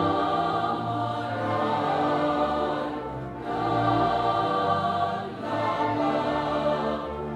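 Mixed choir singing Spanish lyrics in long held phrases over a symphony orchestra, with strings accompanying; the phrases break briefly about three seconds in and again about five and a half seconds in.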